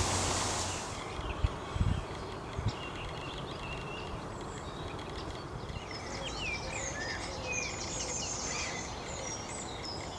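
Birds chirping and singing over a steady outdoor background hiss, the birdsong busiest in the second half. A few soft low knocks in the first few seconds.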